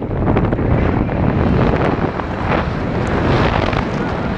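Wind rushing over an action camera's microphone as a Santa Cruz Bullit mountain bike rides down a dirt trail, with tyre noise and frequent rattling knocks from the bike over the bumps.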